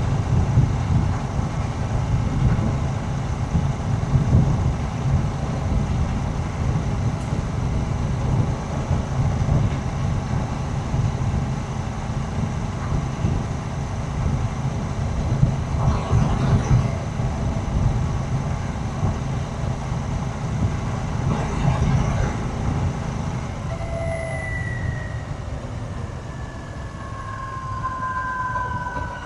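Royal Enfield Shotgun 650's parallel-twin engine running steadily while the motorcycle is ridden along the road. Near the end, a couple of high tones glide slowly downward over it.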